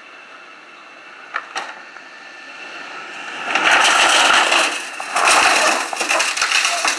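Truck tyres riding up onto a wooden pallet, giving loud crunching and cracking of wood in two long spells from about halfway in.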